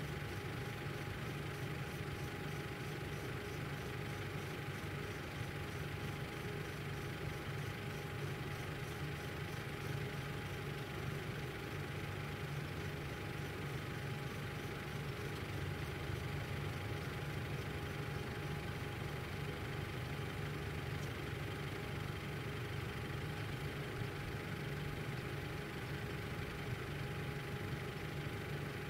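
Steady low engine hum, like a vehicle idling, with a faint steady whine above it that does not change.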